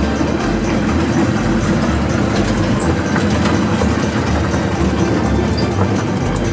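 Old J&E Hall escalator running: a steady mechanical rumble and hum with faint light clicking over it.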